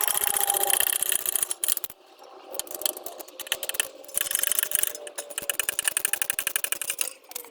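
Ratchet wrench clicking rapidly in two runs as a bolt is turned, with a few scattered metal knocks between them.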